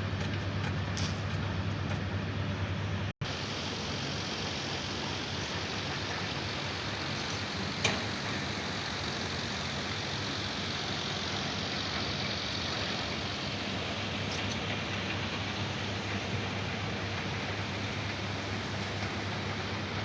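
Heavy machinery running steadily, with a low, even hum for the first three seconds. After an abrupt cut the noise turns into a more even, hissy wash with a single sharp click about eight seconds in.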